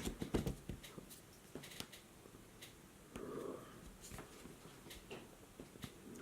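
Small clicks and taps of an opened smartphone being handled, with a brief faint murmur about three seconds in.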